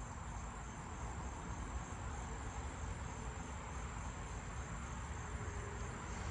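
Southern ground crickets trilling continuously, a thin, steady high-pitched buzz, over a low rumble.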